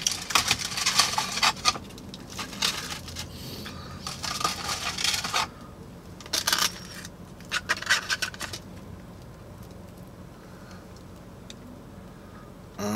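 Close-up rustling, crinkling and scraping of paper and cardboard fast-food packaging being handled, densest in the first five seconds, with a few short bursts of crunching from fried onion rings being eaten.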